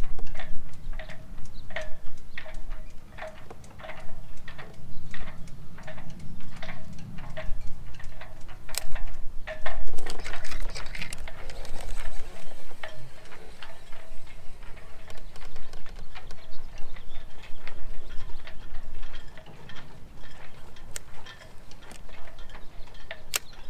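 Steady mechanical clicking, about two or three clicks a second, over a low rumble; it stops about ten seconds in, leaving only faint scattered ticks and a single sharp click near the end.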